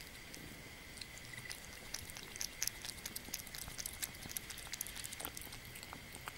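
Kitten eating boiled meat and egg from a bowl of broth: quick wet lapping and chewing clicks, thickest and loudest in the middle.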